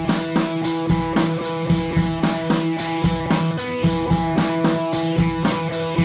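Background music with held notes over a steady beat.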